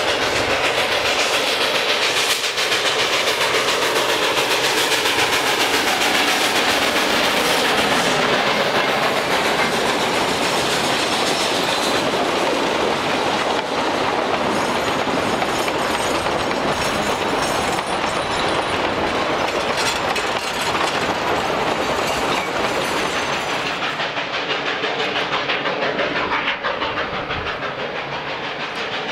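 Durango and Silverton narrow-gauge steam train running, its wheels clicking over the rail joints.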